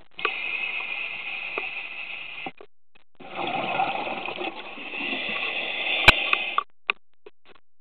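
Scuba regulator breathing underwater: two long breaths of rushing air and bubbles, about two and three seconds long, with a short pause between them. A sharp click comes near the end of the second breath.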